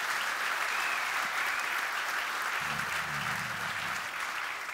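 Audience applauding, a steady even clapping that dies away near the end.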